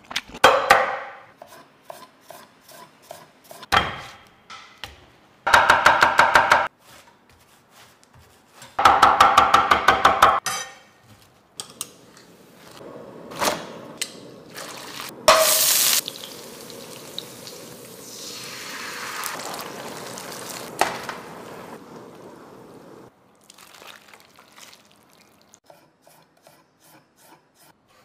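Kitchen cooking sounds: two bursts of rapid, evenly spaced knife chopping on a board, then water simmering in a pan as slices of fatty beef are blanched in a stainless mesh strainer, with knocks of the strainer and utensils and one loud short splash-like burst in the middle.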